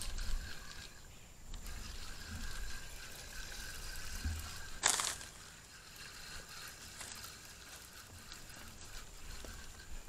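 Faint riverside noise with some low wind rumble on the microphone near the start, and one short, sharp splash about five seconds in as a hooked small blue catfish is reeled toward the bank.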